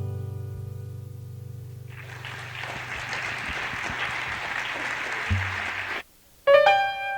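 A final acoustic guitar chord rings out and slowly fades. The audience starts applauding about two seconds in, and the applause stops abruptly about a second before the end. Then a piano starts playing the next piece.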